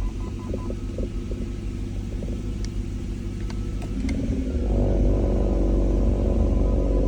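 BMW E39 540i's V8 idling with a low rumble. About two-thirds of the way through it grows louder and heavier. This is the strange knocking with vibration that shows when the car is in reverse or drive.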